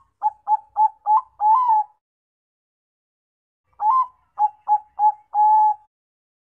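Bangkok-bred zebra dove (perkutut) cooing: two song phrases about four seconds apart, each a run of short clipped coos ending in a longer drawn-out coo.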